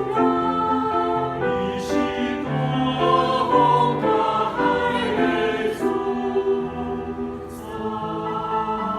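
Church choir singing a hymn in sustained chords that change about every second.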